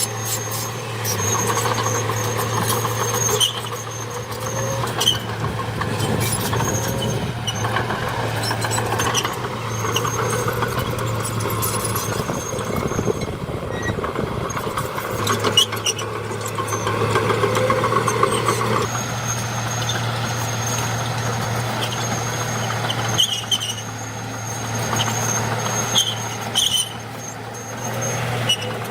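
Heavy earth-moving machinery working: a steady diesel engine drone, a high thin squeal that comes and goes, and occasional sharp knocks.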